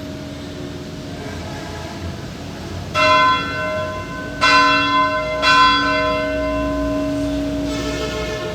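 Church bells ringing. Three loud strikes come about three, four and a half, and five and a half seconds in, with a fainter one near the end, over the steady hum of the bells still sounding.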